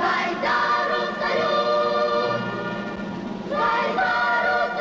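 Choir singing a song in long held notes over instrumental accompaniment, with a new phrase starting about a second in and another near the end.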